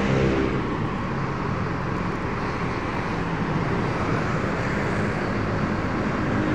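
Steady outdoor traffic noise: an even, unbroken rumble and hiss with no distinct events.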